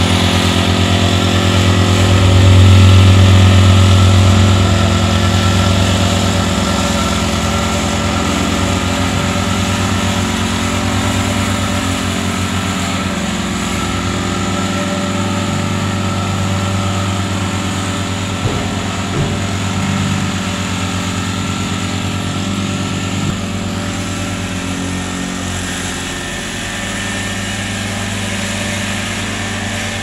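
Small petrol-engined compactor running and vibrating steadily as it tamps loose fill, with a fast, even pulsing. Loudest about three seconds in, then slowly fading as it works away.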